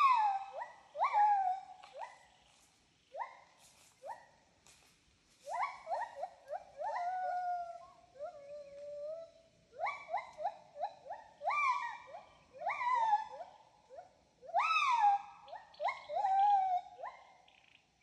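A chorus of repeated whooping animal calls. Each note slides up and then falls away in pitch, and several voices overlap. The calls come in clusters with short pauses between them, and the loudest are near the start and again a little past the middle.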